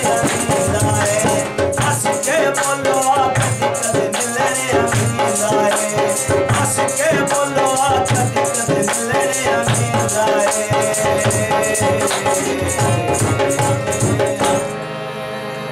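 Punjabi tappay mahiye folk song: a man sings over a steady rattling percussion beat and drum. Near the end the band cuts off and quieter held tones take over.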